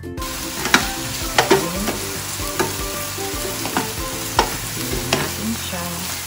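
Chorizo de Bilbao slices, chicken and tofu sizzling in oil in a wide nonstick frying pan while a wooden spatula stirs them, knocking and scraping on the pan about every half second.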